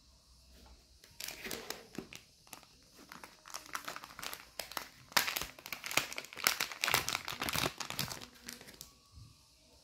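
Clear plastic zip bag crinkling and rustling as it is handled, a dense run of crackles from about a second in until near the end.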